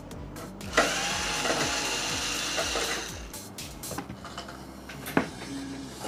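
Cordless electric screwdriver running for about two seconds from about a second in, turning a screw in a microwave oven's sheet-metal casing, then a single sharp click about five seconds in.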